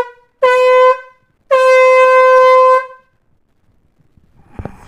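Air horn blasting twice at a single steady pitch: a short blast, then a longer one of over a second.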